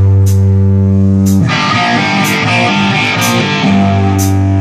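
Rock band playing an instrumental passage between vocal lines: a loud, held distorted electric guitar chord rings out, then the drums and cymbals come in fuller about a second and a half in, with a strike about once a second.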